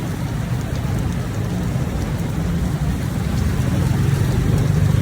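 Heavy rain and street traffic in a steady wash of noise, with a low engine hum that grows louder about three and a half seconds in as a vehicle passes closer.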